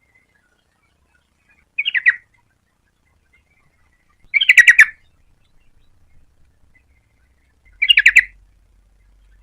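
Yellow-vented bulbul calling: three short bursts of quick repeated notes, a few seconds apart.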